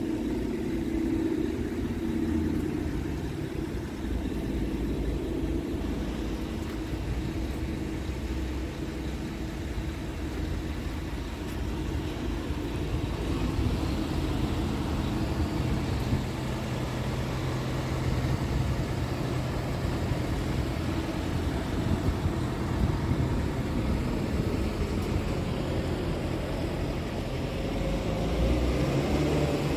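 Scania P truck's diesel engine idling steadily.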